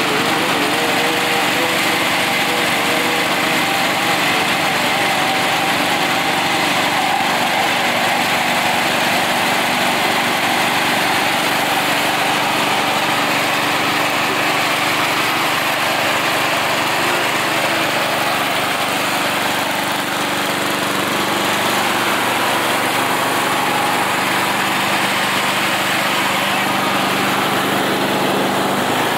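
Toro riding lawn mower's engine running steadily while its rear tire spins in place on asphalt in a chained-down burnout, with a continuous hiss of tire scrub over the engine.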